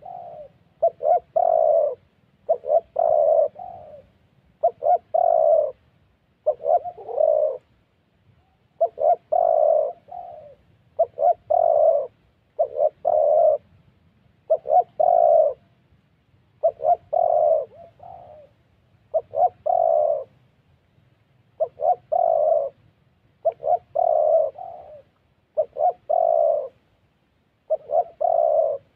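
Spotted doves cooing: short phrases of three or four coos, repeated about every two seconds.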